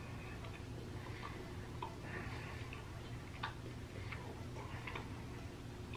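Small candy wrapper crinkling and ticking in the fingers as it is picked at and unwrapped, in scattered light crackles over a faint steady hum.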